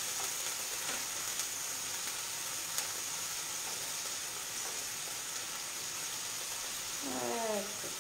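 Pieces of hake frying in oil in a pan: a steady sizzle, with a few light clicks in the first few seconds.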